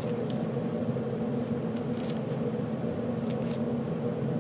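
Sticky slime mixed with small beads being pulled and squished by hand, giving faint crackles and sticky clicks now and then over a steady low background hum.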